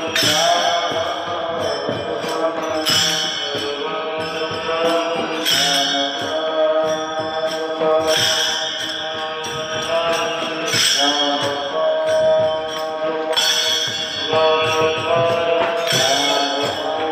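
Men chanting a devotional bhajan together, keeping time with small brass hand cymbals (taal), with louder accents about every two and a half seconds.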